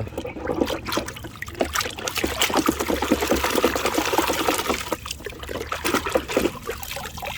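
Water trickling and splashing over a plastic toy excavator as it is rinsed clean, with small clicks and knocks of the plastic being handled.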